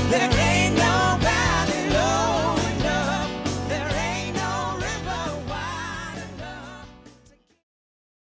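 Soul band playing with sung lead vocals over a steady drum beat. The music fades out about seven seconds in.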